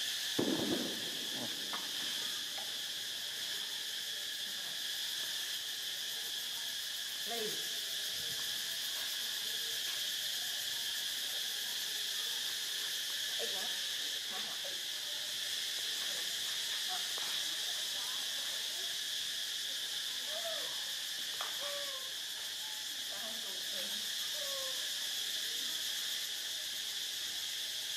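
Steady high-pitched drone of insects, with scattered short faint squeaks and chirps over it and a brief louder sound just after the start.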